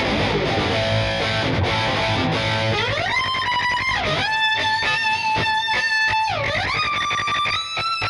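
Schecter C1 Elite electric guitar played lead: a quick run of notes, then a note slides up about three seconds in and is held with vibrato. The held note dips in pitch and swoops back twice, then settles on a higher held note near the end.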